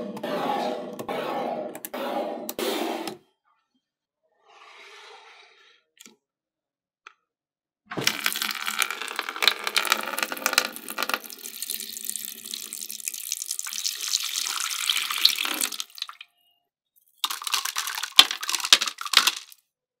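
Water poured in a thin stream into a shallow clear plastic basin, splashing for about eight seconds in the middle. Shorter noises come before and after it: a dense sound in the first three seconds and a brief burst with clicks near the end.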